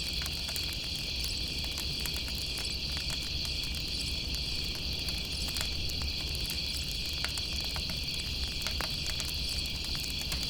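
A steady chorus of chirping night insects, with a campfire crackling in scattered small pops underneath.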